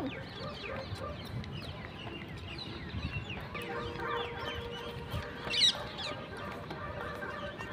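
Birds chirping and calling outdoors in many short notes, with one louder, higher call about five and a half seconds in.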